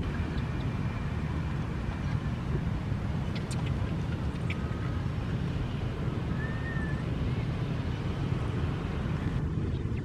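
Steady low outdoor rumble, like wind on the microphone or distant traffic, with a few faint clicks and one brief faint high chirp about two-thirds of the way through.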